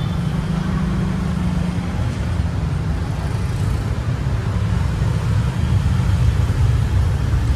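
Street traffic: a steady low rumble of vehicle engines running, with a low engine hum under it.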